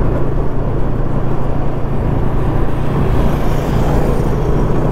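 Motorcycle engine running at a steady cruising speed while riding, a constant low drone under road and wind noise.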